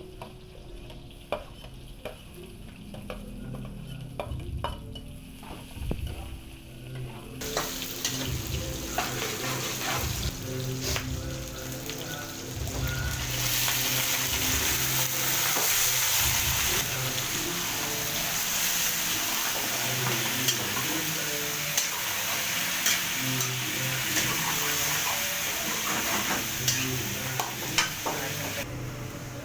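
Chicken frying and sizzling in a pan, with a utensil clicking and scraping against the pan as it is stirred. The sizzle starts about seven seconds in, grows louder around the middle and dies down just before the end.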